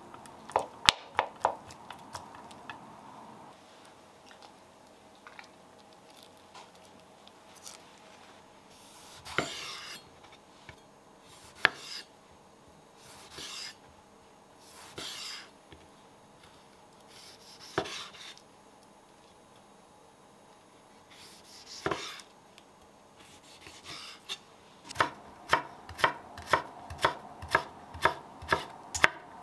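Kitchen knife cutting on a wooden chopping board: a few separate slicing strokes through a tomato, then fast, even chopping near the end as a cucumber is finely diced, about two to three strokes a second. About a second in, a few quick clinks of a spoon against a glass bowl.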